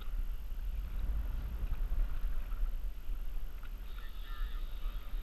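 Wind rumbling on an action camera's microphone over water sloshing around a kayak, with a short wavering squeak about four seconds in.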